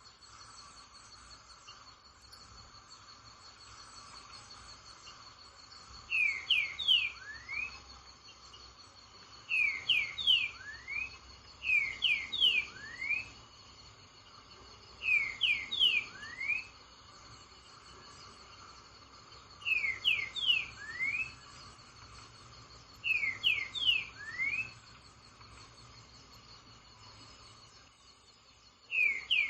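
A songbird repeating a short phrase, a few quick sweeping notes ending in a rising slur, seven times at intervals of a few seconds, over a steady high drone of crickets or other insects.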